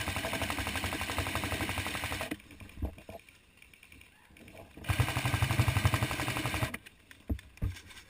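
Airsoft electric guns firing on full auto: two long rapid bursts of about two seconds each, with a few single shots between and after them.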